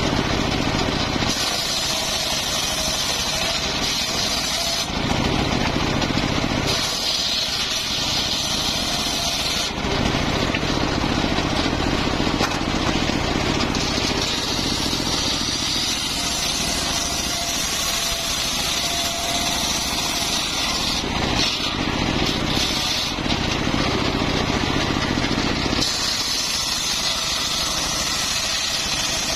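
Engine-driven circular sawmill running loudly while its blade saws through a mahogany log. The tone shifts every few seconds.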